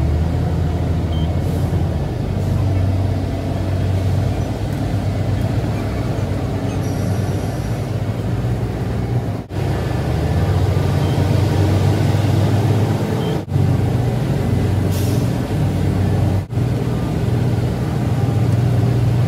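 A heavy truck's diesel engine running at low revs as the truck is manoeuvred into position, with a short air hiss about fifteen seconds in.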